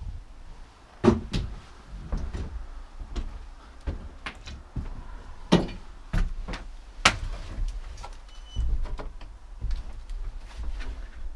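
Irregular wooden knocks and thumps in an old house, a dozen or so, with the sharpest clacks about a second in, at about five and a half seconds and at about seven seconds.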